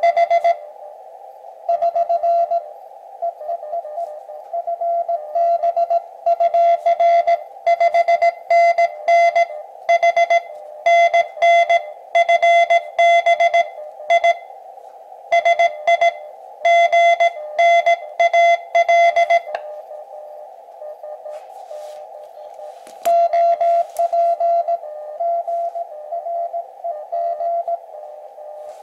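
Morse code (CW) from an Elecraft KX2 transceiver's speaker: a single mid-pitched tone keyed in dots and dashes over steady, narrow-filtered receiver hiss, with short pauses between transmissions. The signal turns fainter about twenty seconds in, then comes back stronger shortly after.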